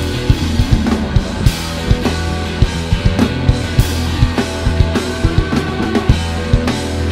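Live band playing: a drum kit with a steady kick drum, snare and cymbal crashes over electric bass and electric guitar.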